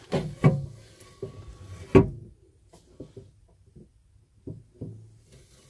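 A series of dull knocks and bumps from handling, the loudest about two seconds in.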